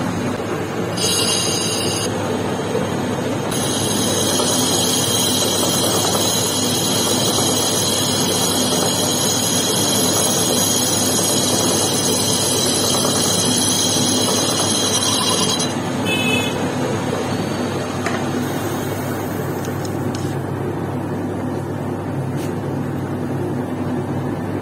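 Metal lathe machining a motorcycle clutch housing: a steady running noise from the spindle and cut, with a high-pitched squeal from the cutting tool briefly about a second in and again from about 3.5 to 15.5 seconds in.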